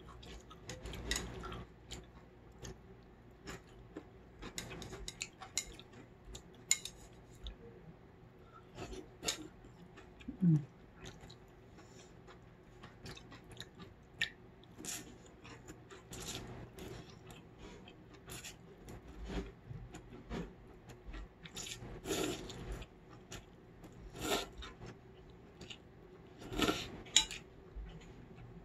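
Close-up eating sounds of cold noodles (mul-naengmyeon): slurping noodles, chewing, and wooden chopsticks clicking against a stainless steel bowl, in short separate bursts.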